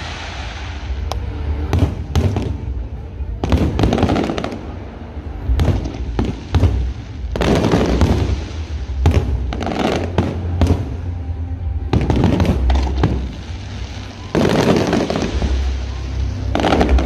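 Aerial fireworks bursting overhead: waves of sharp bangs and crackling come every second or two over a deep, continuous booming rumble.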